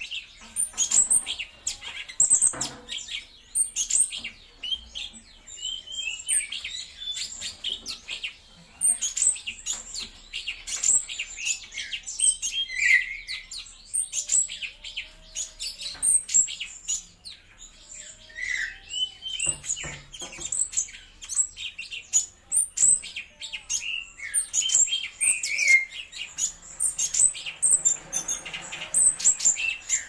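Caged cucak cungkok, a leafbird, singing a fast, nonstop song of sharp chirps and rattling trills, with a short pause about two-thirds of the way through.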